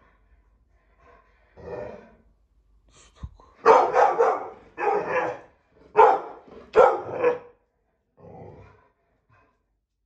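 Pit bull barking in a string of loud, deep barks, a quieter one first, four loud ones in the middle and a softer one near the end. It is guard barking, at something the dog heard outside.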